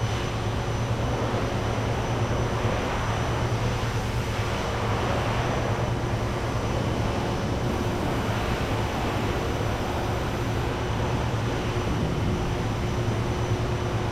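Steady low hum with an even rush of background noise, unchanging throughout, with no distinct knocks or clicks standing out.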